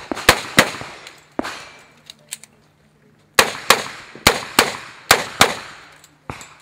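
Handgun fired in a rapid string of about eleven shots, mostly in pairs about a third of a second apart, each with a short echo. A pause of about two seconds comes after the first four shots.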